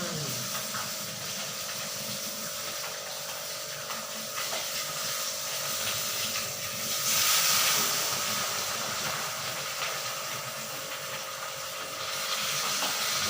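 Tilapia frying in hot oil, a steady sizzle that swells louder for a second or so about seven seconds in.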